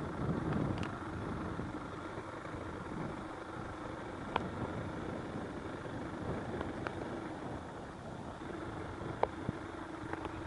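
Boat engine running steadily, a low even hum with a faint held tone and a few light clicks.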